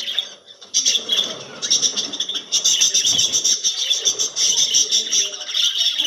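A flock of budgerigars chattering in a continuous, dense high-pitched warble of chirps, with a short lull just after the start.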